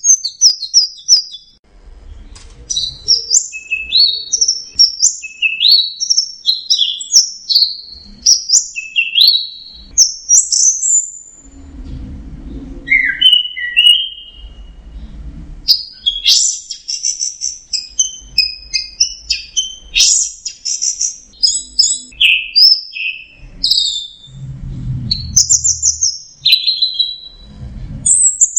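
Orange-headed thrush singing a fast, varied song of short whistled notes that sweep up and down, phrase after phrase with brief pauses. A few low rumbles sit under the song.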